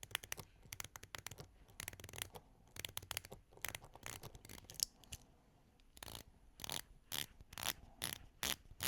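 Seiko SPB175 Sumo Ice Diver's unidirectional dive-watch bezel being turned, ratcheting through its detents in quick runs of clicks, then clicking more slowly, about two clicks a second, from about six seconds in.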